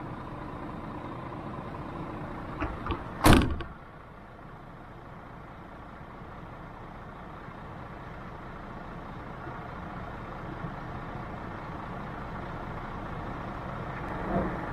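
A truck's engine running steadily, with one loud door slam about three seconds in.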